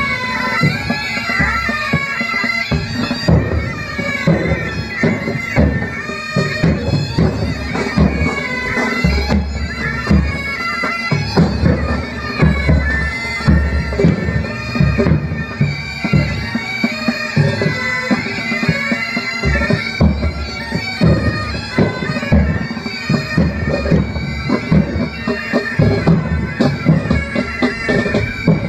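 Military pipe band playing: bagpipes sound a tune over a steady drone, with drums beating a march rhythm.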